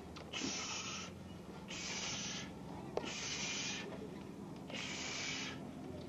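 A man breathing hard under the strain of carrying a full-size refrigerator on his back: four forceful, hissing exhales about a second and a half apart. Two short knocks of his steps on the wooden stairs come in between.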